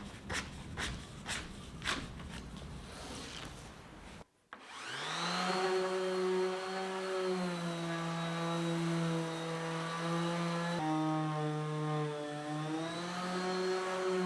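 Hand sanding or scraping of a wooden door, rough strokes about twice a second. It is cut off abruptly after about four seconds. Sustained, slowly shifting background music follows and fills the rest.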